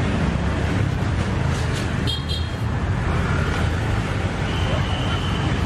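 Street market ambience dominated by a steady low rumble of road traffic, with a few short high-pitched beeps about two seconds in.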